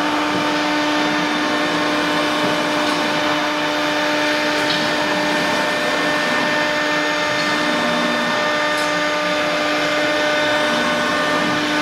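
ATC CNC router spindle running at a steady speed: a constant whine over a steady hiss of machine noise.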